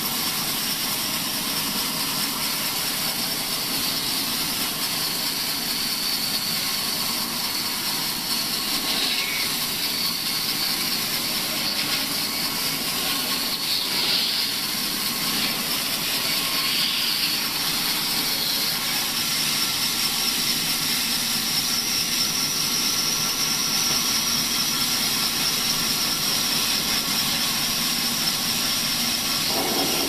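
Mini sawmill's blade running and ripping lengthwise through a wooden plank, a continuous machine noise with a steady high whine over it.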